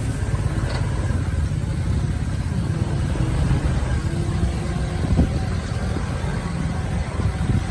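Engine of a heavily loaded sugarcane truck running steadily at low speed on a rough dirt track, with two short knocks, one past the middle and one near the end.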